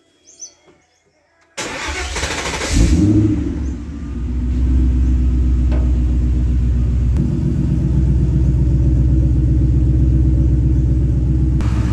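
Ford BA XR8 5.4-litre V8 starting: about a second and a half in it fires, flares up in a brief rev, then settles into a steady idle.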